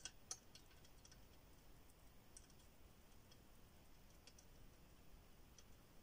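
Faint, scattered crackling ticks of solder and flux spitting as a soldering iron melts solder onto an XT60 connector pin, a small cluster at the start, then a few single ticks; otherwise near silence.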